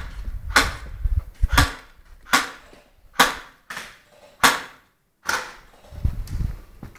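Airsoft gun shots: about eight sharp single cracks, roughly one every second or less, over the first five seconds, each with a short echo. Low rumbling handling noise on the camera near the start and again about six seconds in.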